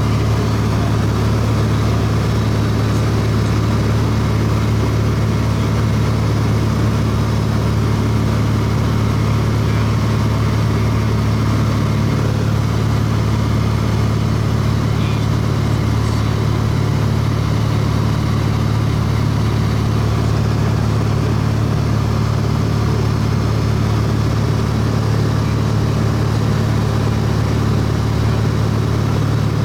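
Light plane's engine and propeller heard from inside the cabin: a steady, unchanging low drone in level flight.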